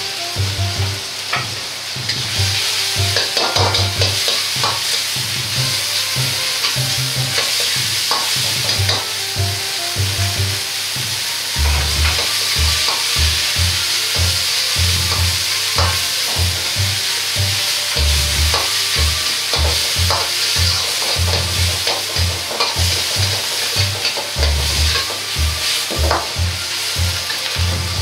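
Ground pork sizzling in hot oil in an iron wok while a metal wok ladle stirs and breaks it up, scraping and knocking against the pan again and again.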